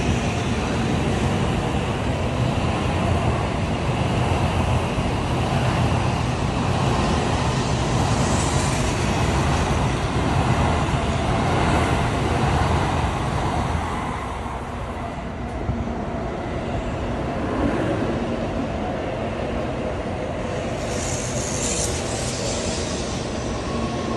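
Tokaido Shinkansen N700A trains running past at a station platform: a continuous rumbling rush of wheel and air noise. It eases about 14 s in, then builds again as another train comes in alongside, with a brief high hiss near the end.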